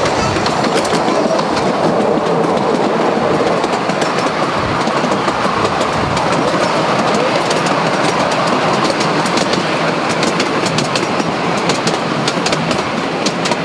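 A 7.25-inch gauge miniature railway train running along its track, heard from on board a passenger carriage: a steady rumble with rapid clickety-clack from the wheels over the rails, the clicks busiest in the second half.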